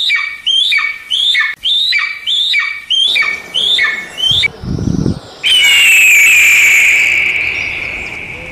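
Red kite calling: a quick run of about nine short squealing notes, each dropping in pitch, about two a second, then one long high whistle that slides down and holds, slowly fading. A brief low rumble sits between the two parts.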